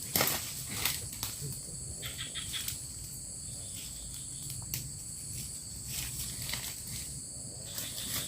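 Steady high-pitched insect chorus, with a few sharp clicks and a brief burst of fast ticking.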